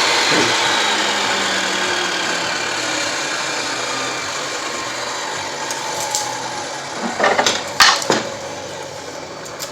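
Table saw winding down after being switched off: its whine falls in pitch and fades steadily. A few sharp knocks come near the end.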